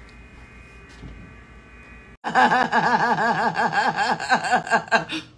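Quiet room hum for about two seconds. Then, after a sudden cut, a woman laughs excitedly for about three seconds in quick, repeated pitched bursts that rise and fall.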